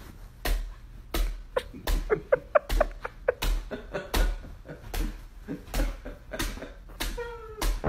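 A curly-coated dog pouncing again and again on a bed, each landing a soft thump, about one and a half a second, with short squeaks in between.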